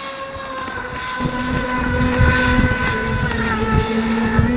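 1/6-scale RC jet ski's brushless electric motor running with a steady high whine that shifts slightly in pitch with the throttle. About a second in the sound turns close up and louder, with water rushing and slapping against the hull under the whine.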